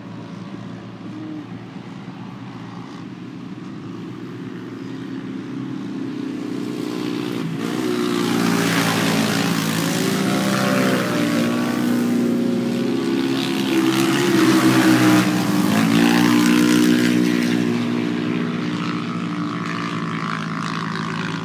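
Several 570-class UTV race engines revving and backing off as the cars race. They build up from about a third of the way in, are loudest past the middle, then fade a little, all over a steady hum.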